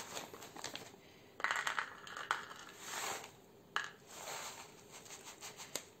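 Crinkly plastic snack bag rustling and crackling as hands handle it and dig into it, in several short bouts with a few light clicks.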